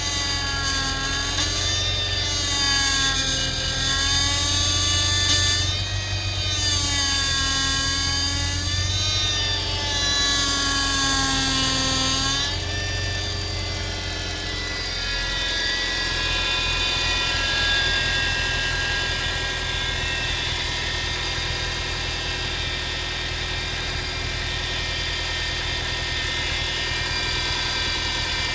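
Power steering pump on a Subaru Impreza WRX STI (GRB) whining over the running engine just after start-up. The whine wavers up and down in pitch every few seconds, then about twelve seconds in settles into a quieter, steadier whine. The noise is the sign of a faulty pump, said to be a common trouble on this model, and one that called for pump replacement.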